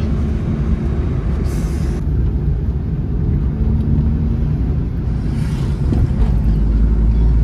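Motor vehicle running, with steady low engine and road noise; the low hum grows stronger about six seconds in.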